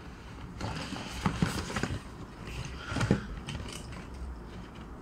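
Paper shopping bag and plastic wrapping rustling and crinkling as an item is pulled out and handled, in irregular crackles that come thickest in the first two seconds and again around three seconds in.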